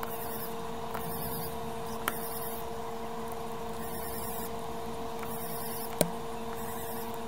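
Steady electrical hum from workbench equipment, with two light clicks, one about two seconds in and one about six seconds in.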